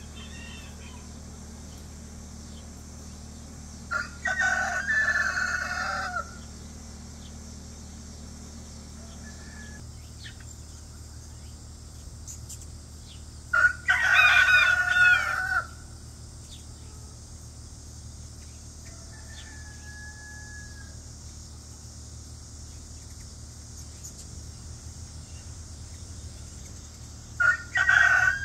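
A rooster crowing three times, each crow about two seconds long and roughly ten seconds apart.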